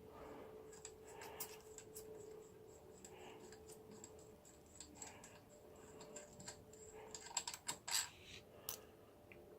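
Faint small metallic clicks and taps of hand tools working the clutch pressure-plate bolts on a Triumph Tiger 800, with a quick run of clicks about seven to eight seconds in, over a faint steady hum.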